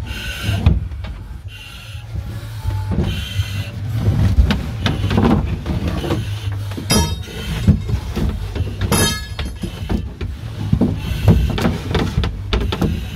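Firefighters in breathing apparatus crawling through a tight plywood training maze: gear and air cylinders scraping and knocking against the boards, clothing rustling, and short hissing breaths through the breathing-apparatus masks.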